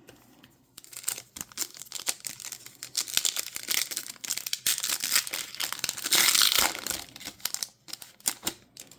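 A foil trading-card pack being torn open: crinkling and tearing of the wrapper in a rapid run of crackles, loudest about six seconds in.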